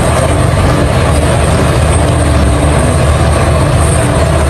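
Large Liebherr crawler excavator's diesel engine running hard under load while demolishing concrete, a loud, steady, heavy rumble.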